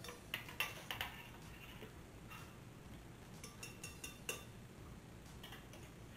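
A utensil clinking and scraping against a small metal saucepan: a few light clicks in the first second, then another cluster with a brief metallic ring around four seconds in.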